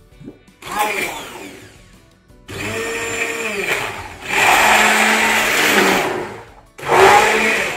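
Hand-held immersion blender puréeing cooked lentil soup in a saucepan, run in three separate bursts. The middle run is the longest and steps up louder about four seconds in.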